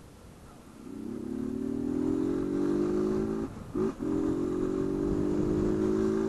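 Honda CG 160 Fan's single-cylinder four-stroke engine pulling away with its intake hose (mangote) removed, which makes the engine louder. The revs build from about a second in, cut and recover briefly a little past halfway like a gear change, then hold steady.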